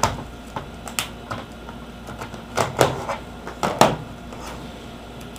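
A handful of sharp plastic clicks and knocks, the loudest two about halfway through, as the netbook's battery pack is unclipped and pulled from its plastic case and set down on a table.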